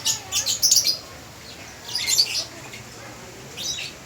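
Birds chirping: clusters of quick, high chirps for the first second, again about two seconds in, and once more near the end.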